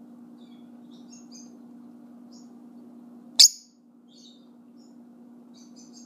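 Pet lovebirds chirping softly and sporadically, with one loud, sharp call about halfway through, over a steady low hum.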